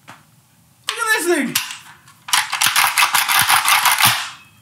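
A short voiced sound sliding down in pitch, then a rapid burst of automatic-gunfire-like pops, about nine a second, lasting about two seconds.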